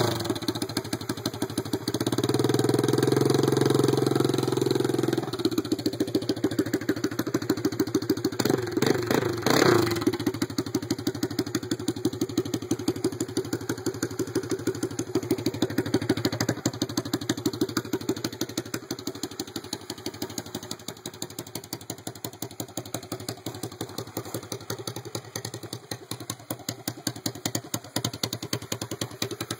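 GY6 180cc four-stroke single-cylinder scooter engine with an A9 cam, running through a straight-pipe exhaust. It is revved and held for a few seconds about two seconds in, blipped a couple of times near ten seconds, then settles to an idle that grows quieter near the end.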